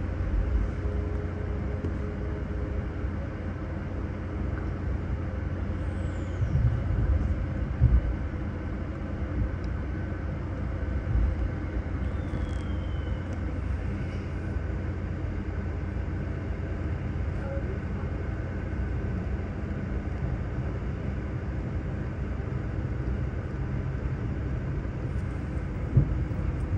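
V set electric intercity train running, heard from inside the carriage: a steady low rumble with a few faint brief squeaks.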